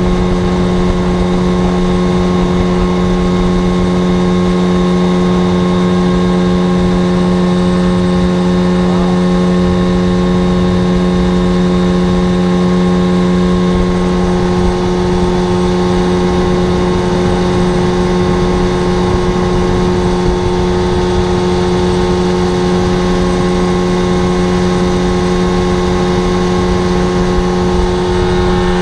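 Mercury 30 hp two-stroke outboard motor running steadily at speed, its pitch holding even, over the rush of water from the boat's wake.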